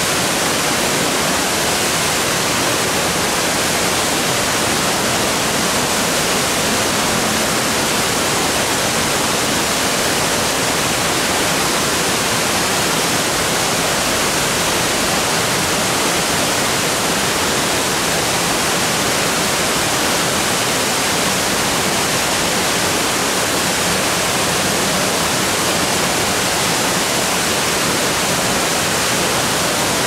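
Waterfall pouring: a loud, steady rush of falling water, unbroken throughout.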